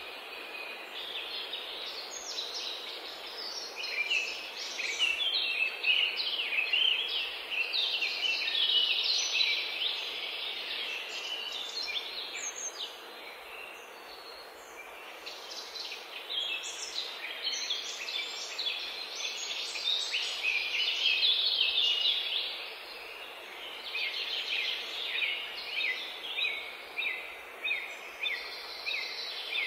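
Many small birds chirping and singing at once: a dense chorus of short, high, overlapping calls that thins briefly about halfway through, over a steady background hiss.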